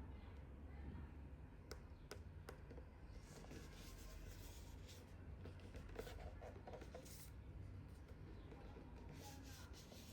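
Faint handling of the mouse's retail box and packaging: soft rustling with a few light clicks and taps, over a low steady room hum.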